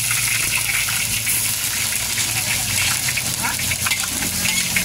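Pounded tapioca leaves sizzling in a hot wok while a metal spatula stirs them, with short scrapes and clicks of the spatula against the pan over a steady frying hiss.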